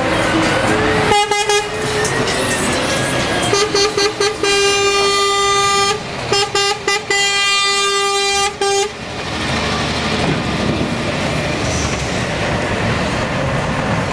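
Truck air horn sounding over the rumble of passing lorries' diesel engines: a short toot about a second in, then two long blasts of a couple of seconds each in the middle, after which only the engines and road noise go on.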